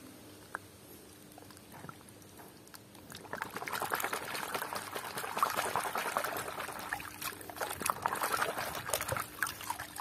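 Muddy water in a tub splashing and sloshing as a hand scrubs a small plastic toy truck under the surface. The splashing starts about three seconds in, after a fairly quiet opening.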